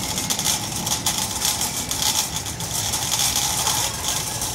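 Wire-basket shopping trolley pushed over a concrete floor, its wheels rolling and its metal frame rattling steadily.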